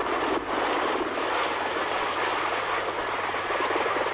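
V-22 Osprey tiltrotor flying slowly in helicopter mode, its Allison T406 turboshaft engines and 38-foot proprotors running: a steady, loud rotor and turbine noise with a fast, even chop from the blades.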